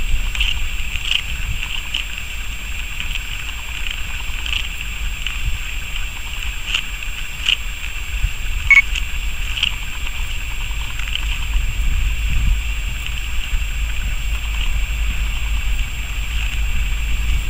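Low, distant rumble of ST44 diesel locomotives, whose two-stroke V12 engines are running, growing a little louder near the end, mixed with wind on the microphone.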